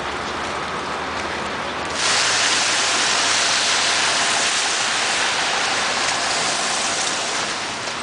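Steady hissing outdoor city-street noise in a wet snowfall, traffic and falling sleet blended into one even wash. It steps up louder about two seconds in.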